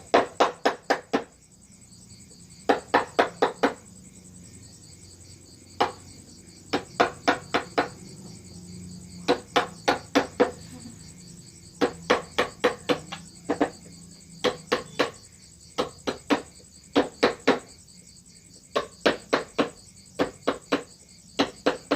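Mallet tapping a wood-carving chisel in quick runs of four to six strokes, a new run every second or two. Crickets chirp steadily in the background.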